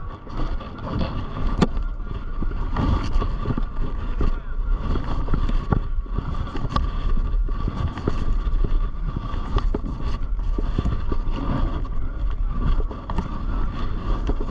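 Rumbling noise on the camera's own microphone, with many small knocks and rustles scattered through it, the noise of a camera being carried and handled.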